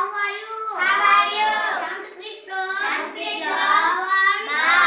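A young girl's voice reciting lesson phrases aloud in a sing-song chant, in long held phrases with short breaks between them.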